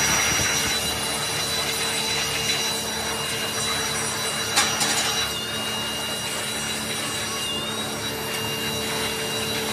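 Handheld electric air blower running steadily, blowing loose sand out of sand-mould cavities in metal moulding boxes. There is one sharp tap about halfway through.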